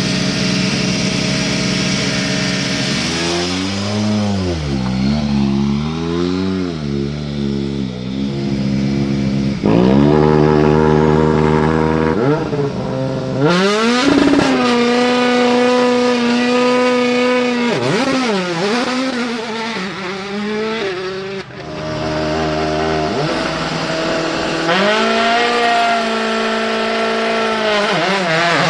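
WRC rally car turbocharged four-cylinder engines revved repeatedly, held at steady high revs for launch control, then accelerating hard away, one run after another.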